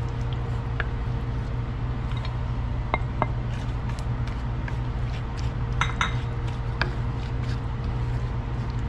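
Wooden spatula stirring in a stainless steel pan while julienned carrots go in: scattered light clinks, taps and scrapes, busiest about six seconds in, over a steady low hum.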